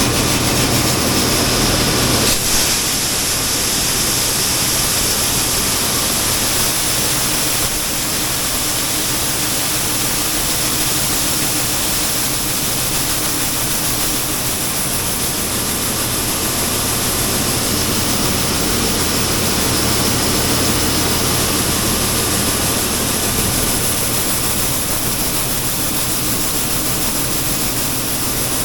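A heavy grain truck's engine running steadily, with a rushing road and wind noise over it. About two seconds in, the sound drops a little and a steady hum falls away.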